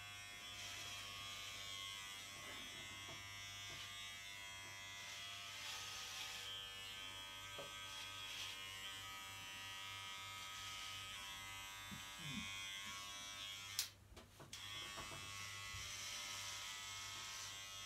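Corded electric hair clipper buzzing steadily as it is run over a short buzz cut to catch stray hairs. About three-quarters of the way through there is a click and a brief drop in the buzz before it carries on.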